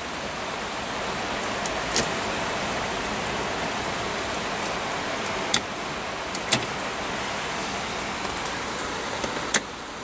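A handful of clicks from the 1962 Chrysler 300's headlight switch as its pull knob is worked, over a steady rushing noise.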